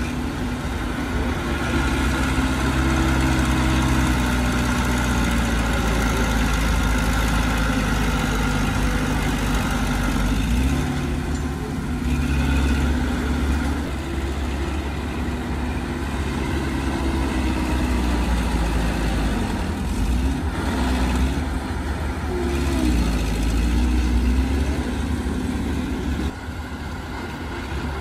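Heavy diesel engine of earthmoving equipment running continuously, its pitch rising and falling as it works under varying load.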